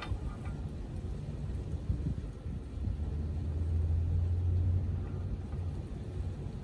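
A low rumble that swells about three seconds in and eases off after about five seconds.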